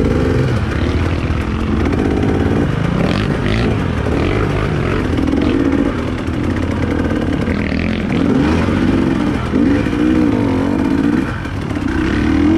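Off-road trail motorcycle engine running while ridden, its pitch rising and falling repeatedly as the throttle is opened and closed.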